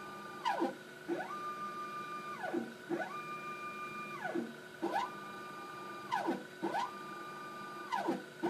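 Phenom desktop SEM's motorised sample stage moving the sample for mapping: a motor whine that rises in pitch, holds steady for about a second, then falls away, repeating about every two seconds, over a steady faint hum from the instrument.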